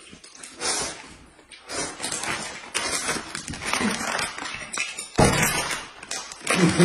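Eating sounds: noodles being slurped and chewed, then a plastic snack packet crinkling loudly as it is grabbed, starting about five seconds in.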